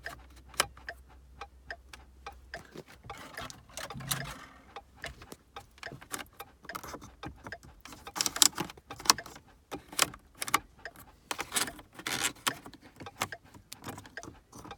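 Plastic buttons and dials of a 2012 Ford Fiesta's heater and AC control panel being clicked over and over in quick, irregular presses, with no response from the unit. The speaker takes the flood-damaged controls for bad.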